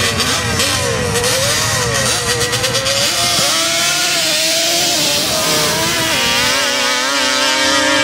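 A sand drag racer's engine revving loudly: its pitch swings up and down in repeated throttle blips, then holds at a higher, steadier rev.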